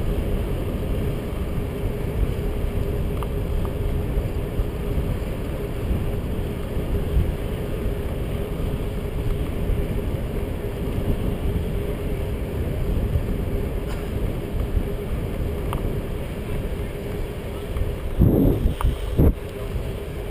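Wind buffeting a GoPro camera's microphone on a moving road bike, a steady rushing noise with a faint steady hum underneath. A few louder bumps come near the end.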